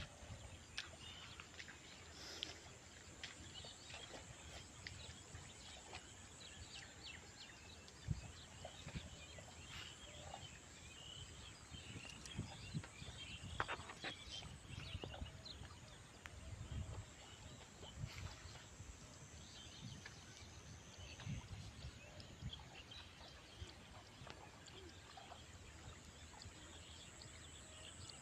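Quiet rural field ambience: many small birds chirping over a steady high-pitched whine, with a few soft low knocks.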